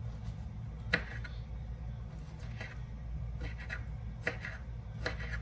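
Knife chopping fresh ginger on a cutting board: irregular light knocks, roughly one a second, the sharpest about a second in, over a low steady hum.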